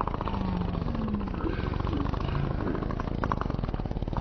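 Cartoon pig fart sound effect, slowed down and drawn out into a long, low, rattling rasp of rapid pulses.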